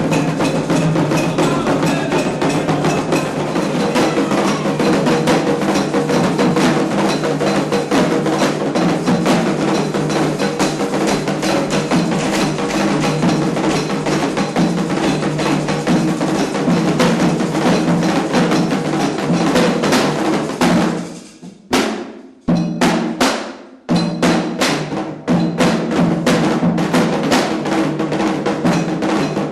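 Candomblé ritual drumming on atabaque hand drums with a struck bell keeping the pattern, fast and dense. About three-quarters of the way through, the drumming breaks off for a couple of seconds, leaving a few lone strikes, then starts up again.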